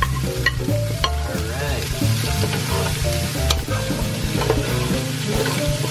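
Vegetables sizzling in hot oil in a frying pan while being stirred, with scattered clicks and scrapes as the wooden spatula and a metal utensil knock against the pan.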